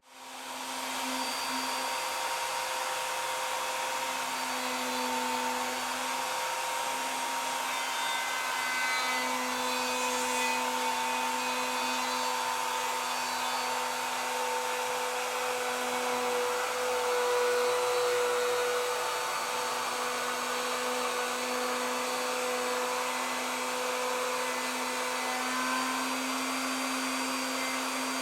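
Bosch Colt palm router motor starting up and running steadily with a constant whine, its pitch wavering slightly.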